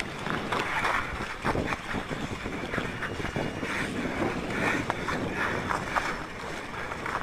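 Water splashing and sloshing around a car that is sinking after breaking through into water, with wind noise on the microphone and a few scattered knocks.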